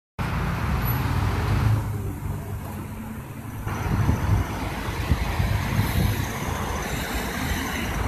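Street traffic noise from cars on a nearby road, with an irregular low buffeting rumble on the microphone from about four seconds in.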